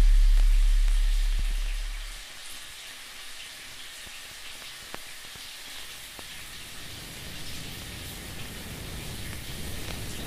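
A deep low drone fades out over the first two seconds, leaving a steady rain-like hiss of falling water with a few separate drips. A low rumble swells in near the end.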